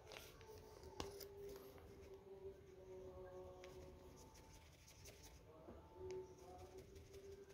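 Near silence: faint crinkling and ticking of a plastic bag as sulfur powder is tapped out of it onto cardboard on a digital scale, with a couple of small sharp clicks and faint drawn-out tones in the background.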